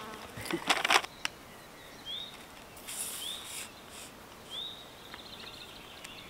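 A few sharp rustling clicks in the first second, then a bird giving a short rising call three times, roughly a second apart.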